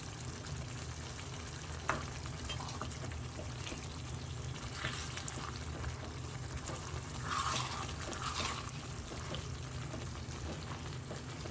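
Vegetable stew sizzling in a non-stick pot while a spoon stirs it, with short scraping strokes about five seconds in and again around seven to eight seconds in. A single click comes about two seconds in.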